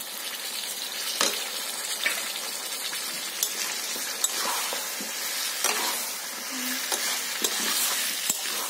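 Spice-coated hog plum pieces sizzling in hot mustard oil in a metal kadai while a flat metal spatula stirs them. The spatula scrapes and knocks against the pan now and then over the steady sizzle.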